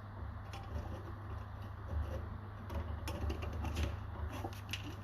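Light, irregular clicks and taps of small tools such as tweezers working on a circuit board, over a steady low electrical hum.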